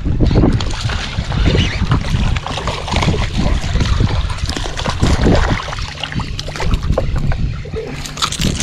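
Wind rumbling and buffeting on the microphone in uneven gusts, with scattered small knocks and clicks through it.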